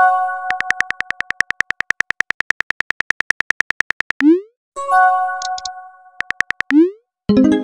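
Synthetic texting-app sound effects: a short chime of several steady tones, then a run of rapid keyboard tapping clicks, about ten a second, for some three and a half seconds as a message is typed, ending in a quick rising swoop. The chime sounds again about five seconds in, followed by a brief burst of taps and another swoop, and a lower chord begins near the end.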